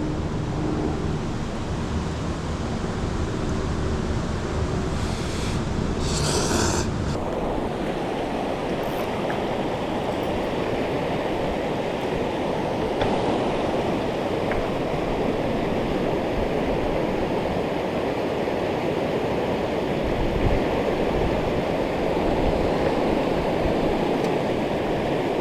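Mountain stream rushing over rocks: a steady wash of water noise. For the first several seconds a low hum with a few steady tones lies under it.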